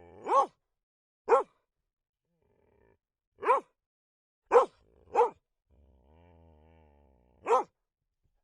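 A dog barking: six single, sharp barks at uneven intervals, two close together about five seconds in.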